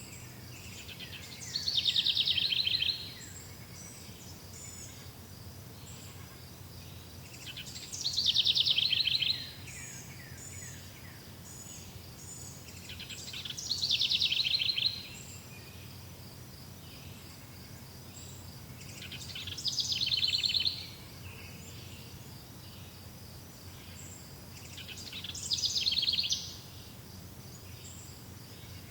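A songbird sings the same phrase of quick, high, downward-sweeping notes five times, about once every six seconds. A steady high buzz and a faint low hum run underneath.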